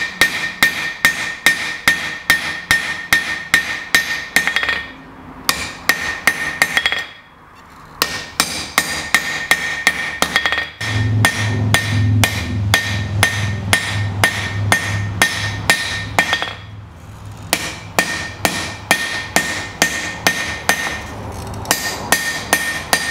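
Hand hammer striking a red-hot bar of 4140 steel on an anvil, spreading out the end of a hot-cut chisel. The blows come in quick runs of about three a second with short pauses between runs, and each blow rings from the anvil.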